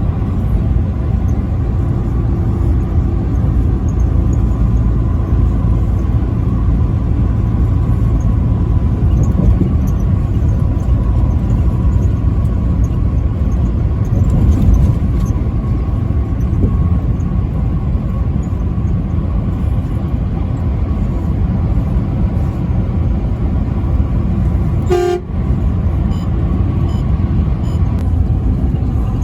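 Truck driving at highway speed: a steady low rumble of engine and road noise, with a short pitched horn toot about 25 seconds in.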